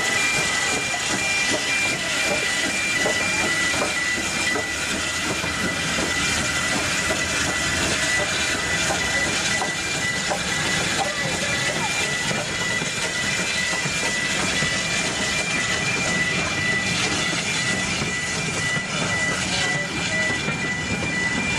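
USATC S160 2-8-0 steam locomotive No. 6046 passing with its coaches: a steady hiss of steam and rail noise. Over it runs a steady high-pitched warning tone from the level crossing.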